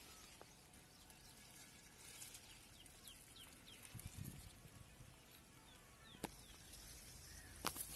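Near silence: faint open-air field ambience with a few short, faint high chirps in the middle and a couple of soft clicks later on.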